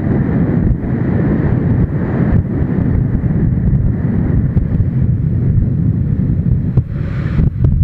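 Motorcycle riding at road speed: heavy wind rumble buffeting the camera's microphone over the engine and road noise.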